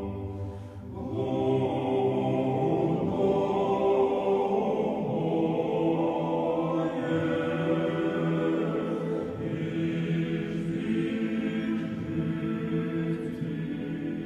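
Sacred choral chant used as soundtrack music: voices hold long, slow notes over a low sustained drone.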